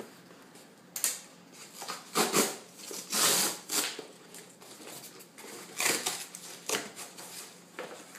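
Cardboard shipping box being torn open and handled: a series of short ripping and rustling noises, the longest about three seconds in.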